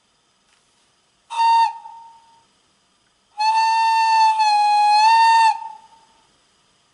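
Brawa E95 06 model electric locomotive's DCC sound decoder playing its whistle through the model's small speaker: a short blast about a second in, then a longer blast of about two seconds that dips slightly in pitch midway.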